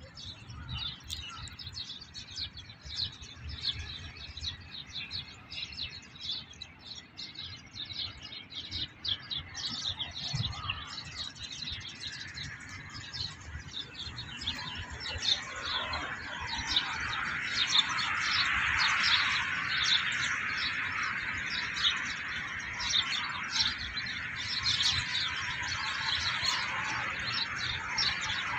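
A flock of small birds chirping and chattering, many calls at once, the chorus growing denser and louder from about halfway through.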